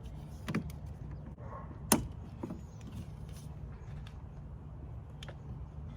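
A few sharp clicks and knocks, the loudest about two seconds in, as a new exterior door handle is fitted into a Lincoln MKZ door, over a steady low hum.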